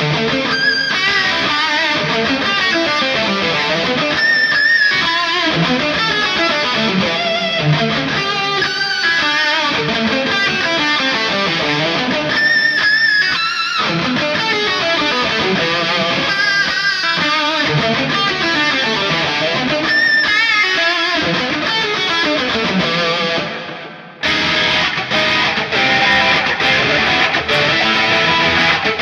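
Ibanez PIA electric guitar played through a software amp simulator, notes and strums running continuously, with a brief break near the end before the playing resumes.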